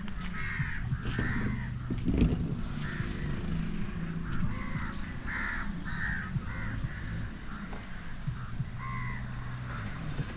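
Crows cawing repeatedly, a dozen or so short calls, over a low steady hum, with a single knock about two seconds in.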